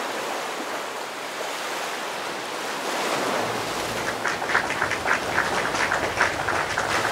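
A steady wash of shallow sea water, then from about three seconds in a hand stirring a plastic tub of gel water beads, the beads clicking and rattling against each other in quick irregular clusters.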